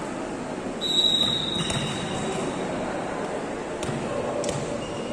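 Referee's whistle blown once, a steady high tone lasting about a second and a half, over background chatter. Two sharp knocks follow later.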